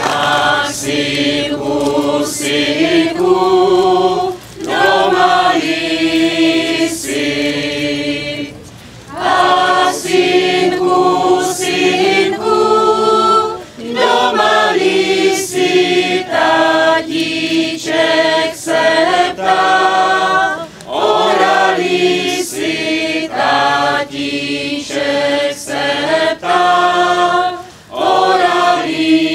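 A small choir of women's and men's voices singing together, in phrases with brief pauses between them.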